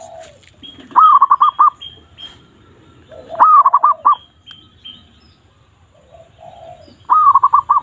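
Zebra dove (perkutut) calls: three loud cooing phrases, each a rising note followed by a quick run of about four short notes, repeating every few seconds. Fainter, lower cooing and short high chirps from other birds come in between.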